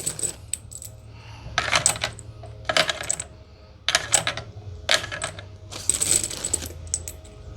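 Rifle cartridges clicking as they are slid one at a time through a 3D-printed AR-15 magazine loader into the magazine, a short cluster of metallic clicks about once a second.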